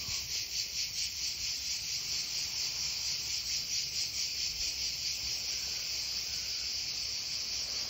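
A steady, high-pitched chorus of insects chirring, pulsing a few times a second.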